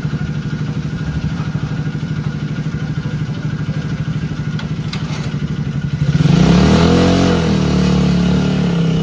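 Mini Massey Ferguson 385 replica tractor's small engine idling with a steady rapid pulse, then revved up about six seconds in, louder and higher, holding there before easing off near the end.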